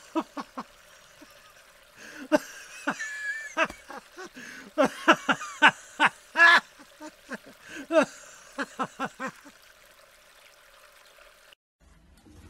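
Running stream water, with a run of short, sharp cries over it that bend in pitch; the sound cuts off abruptly near the end.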